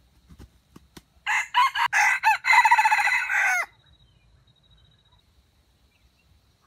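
Red junglefowl rooster crowing once with a stuttering crow: it starts in several short broken bursts, then holds a note that falls away at the end. A few faint sharp claps of wing flapping come just before it.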